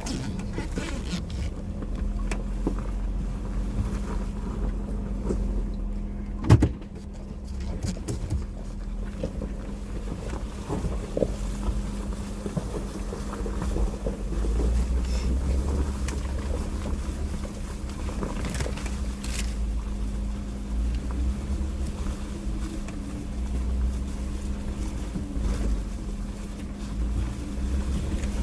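The 3.6-litre V6 engine of a 2016 Jeep Wrangler Rubicon runs at a steady low drone while the Jeep crawls over rough trail, with scattered rattles and knocks from the body and suspension. There is one sharp loud knock about six and a half seconds in, like a jolt over a rut or ledge.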